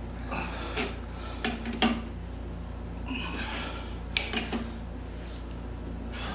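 Hand tools clinking and knocking on metal engine parts, a handful of separate sharp clicks, with a short scraping rustle about three seconds in, over a steady low hum.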